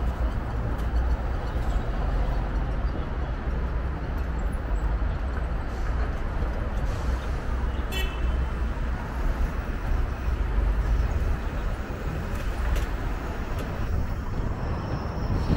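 City street traffic heard from a moving bicycle: a steady wash of vehicle noise with a heavy low rumble. A short sharp tick about halfway through.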